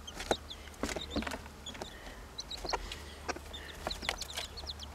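Young chickens peeping in the coop: short high peeps scattered through, with light sharp taps and clicks among them.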